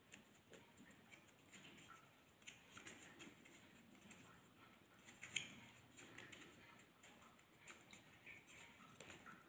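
Faint handling sounds of green floral tape being pulled off its roll and wound around a wire flower stem: scattered small crinkles and ticks, with one slightly louder click about five seconds in.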